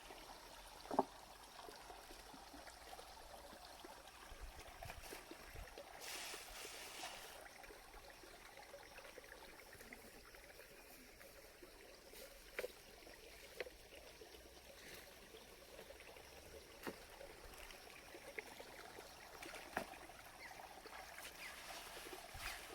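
Faint, steady trickling and flowing of water, with a few sudden knocks, the loudest about a second in.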